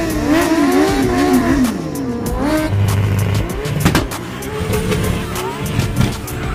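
A sport bike's engine revving hard during a burnout, its pitch rising and falling. Then a car's engine is held at high revs for a burnout, with a sharp crack about four seconds in.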